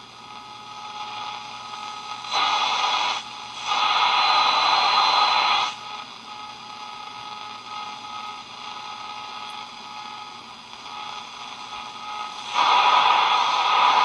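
Zenith K421W AM radio's speaker giving static and hiss between stations as it is tuned across the AM band, with three louder bursts of noise, the second carrying a thin steady whistle.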